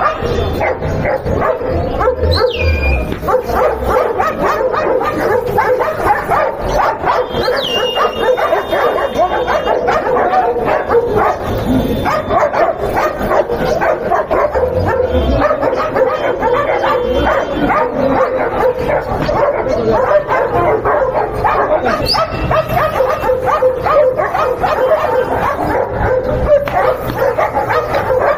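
Several dogs barking without pause, their barks overlapping into a dense, loud din. A German Shepherd on a chain leash, barking and snarling with bared teeth, is among them.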